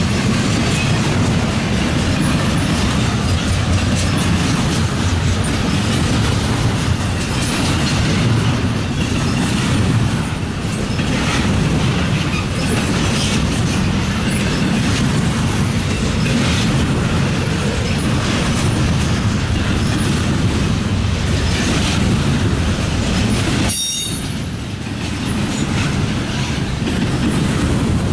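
Double-stack container freight cars rolling past close by: a steady rumble of steel wheels on the rails with a running clatter of clicks, dipping briefly about three-quarters of the way through.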